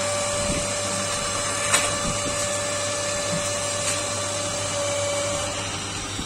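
An electric workshop machine running, with a steady high whine over a constant hum. There is a sharp click about two seconds in, and the whine stops near the end.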